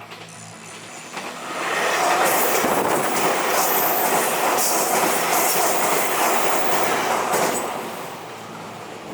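A train passing by on the rails, swelling up about a second in, running loud for several seconds, then fading away near the end.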